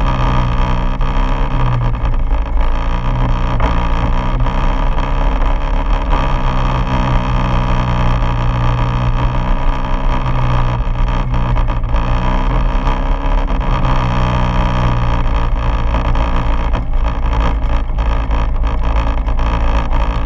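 Quad bike engine running steadily while riding along a dirt track, heard close up from the bike, its note shifting a little with the throttle a few times. A few sharp knocks come near the end as the bike rides over the rough track.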